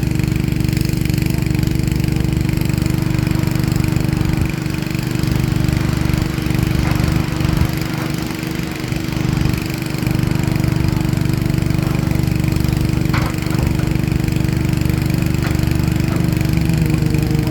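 Heavy earthmoving machinery's diesel engine running steadily under load, with a couple of faint knocks about two-thirds of the way through.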